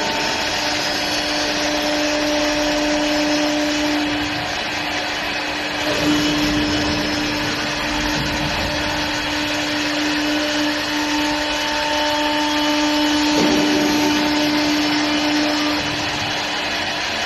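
STYLECNC STL1516-2S2 wood CNC turning lathe running: a steady motor whine over a dense rushing hiss, with the whine breaking off briefly about six seconds in and again about thirteen seconds in.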